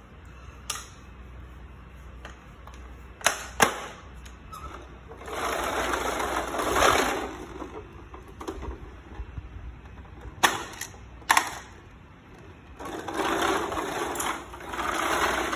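Hard plastic toys knocking and clicking together a few times, with two longer stretches of a plastic toy truck rolling and rattling over a tiled floor, the second near the end.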